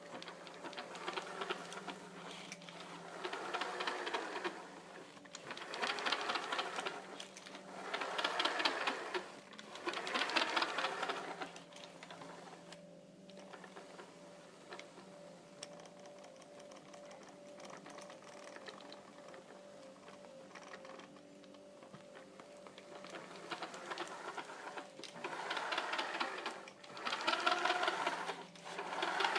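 Drivetrain of a Kyosho Scorpion XXL VE electric RC buggy running with a rapid mechanical whirring clatter over a steady hum. The clatter swells in several bursts of a second or two, loudest near the end. It is the weird noise that appeared after the stock pinion was swapped for a 16-tooth one, meshed with the paper method.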